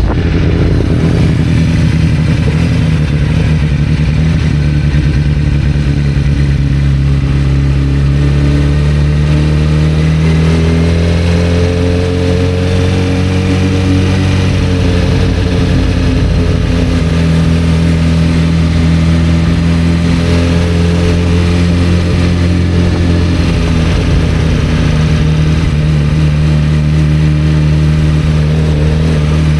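1991 Kawasaki ZZR-400's inline-four engine running at a steady note. Its pitch rises a little and falls back around the middle.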